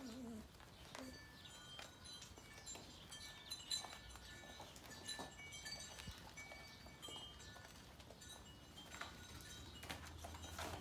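Sheepadoodle puppies playing: faint, scattered clicks and taps of claws and toys on a tile floor, with a short puppy whimper at the start.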